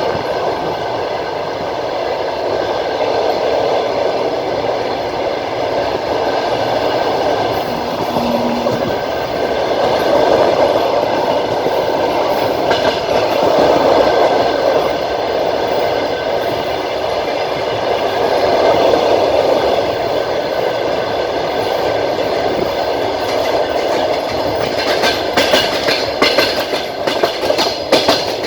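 Passenger train carriage running along the track, heard from on board: a steady rumble of wheels on rails. About 25 seconds in, sharper clacking starts as the wheels cross rail joints.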